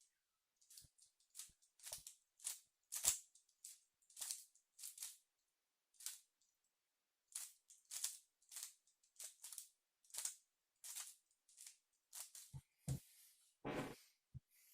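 Rubik's cube being turned face by face to apply a scramble: faint, irregular plastic clicks, about one or two a second.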